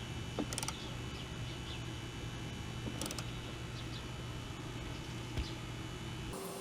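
A ratchet clicking in two short bursts, about half a second in and about three seconds in, as the too-tight valve adjuster nuts on a blower engine are loosened. Birds chirp faintly over a low steady hum, and there is one dull knock about five seconds in.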